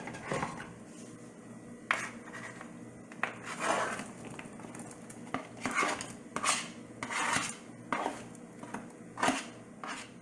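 A utensil scraping and clinking against a cooking pot, a dozen or so short, irregularly spaced strokes, as soup ingredients are handled and stirred in the pot.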